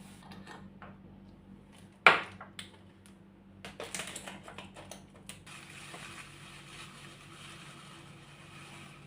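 Kitchen handling sounds: one sharp knock about two seconds in, a quick run of clicks and clatter, then a steady hiss for the last few seconds over a low hum.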